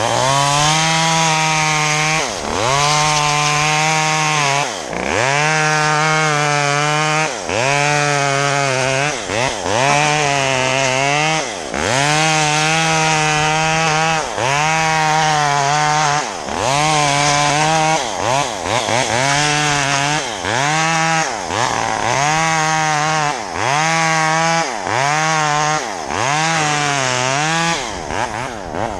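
Chainsaw running at high revs, its engine note dipping and recovering about every second or so, over and over, as it cuts through palm fronds.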